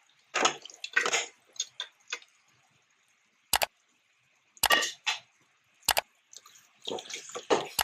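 Boiled chicken pieces dropping wetly into thick masala in a metal kadai, followed by a steel spoon stirring them in and knocking sharply against the pan three or four times, with a busier stretch of stirring near the end.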